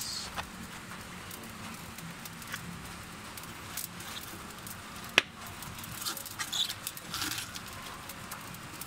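Vegetables being handled in a stainless steel bowl with a spoon: light rustles and clicks over a steady hiss, with one sharp click about five seconds in and a cluster of rustling near the end.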